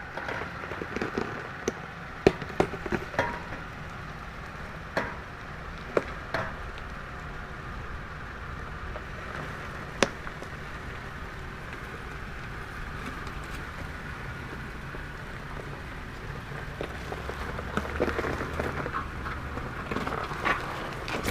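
Toyota 4Runner engine running low and steady while crawling over rock, with tyres crunching and grinding on stones and several sharp knocks and clunks from rocks against the truck. The crunching picks up near the end.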